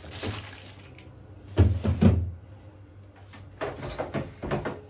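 Food packets and the refrigerator's plastic shelves and compartment clunking and knocking as groceries are put away: two heavy thuds about one and a half to two seconds in, then a run of lighter knocks near the end.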